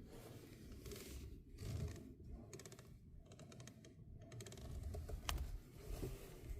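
Rapid faint clicking from a car's steering as the wheel is turned, with one sharper click about five seconds in, over a low rumble. The owner wonders whether this noise means a fault.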